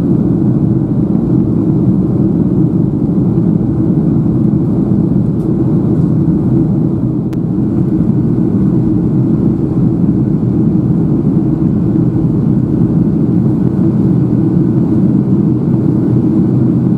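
Steady in-flight cabin noise of a Boeing 737-800: its CFM56-7B jet engines and the airflow past the fuselage make a loud, even rumble heard from a window seat over the wing.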